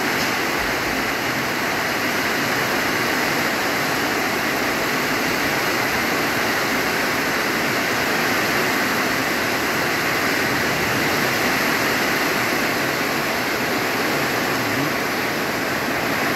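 Heavy rain falling in a steady, unbroken downpour.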